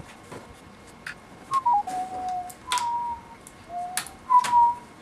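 A few short whistled notes, stepping down in pitch and then held, over scattered sharp clicks from laptop parts being handled.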